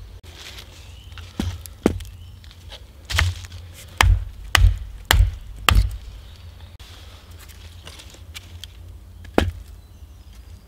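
The back of a hatchet head pounding a sharpened green-wood stake into the ground: about seven sharp blows in the first six seconds, then one more knock near the end.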